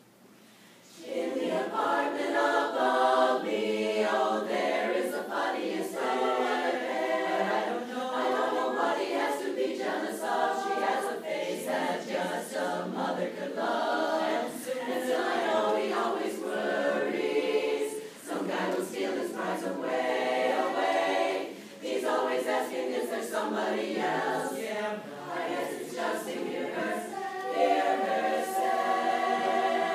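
A chorus singing a cappella, many voices in chord, coming in about a second in and carrying on with only short breaks between phrases.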